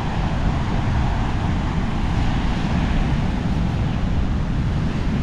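Wind rumbling on the microphone over the steady wash of ocean surf on a beach.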